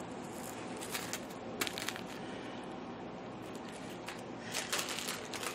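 Small plastic zip bags of diamond painting drills being handled: faint crinkling and rustling with a few light crackles, a small cluster of them near the end.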